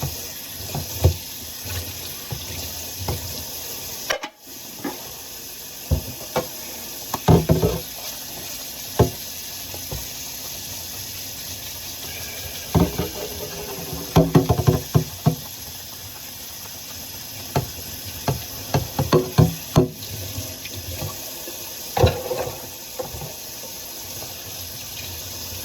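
Tap water running steadily into a kitchen sink while dishes are washed by hand, with irregular clinks and knocks of crockery and plastic being scrubbed and set down; the water noise cuts out briefly about four seconds in.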